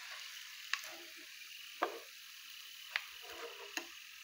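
Hot oil sizzling steadily in a frying pan around frying milk bread dough sticks, with four short sharp clicks spread through.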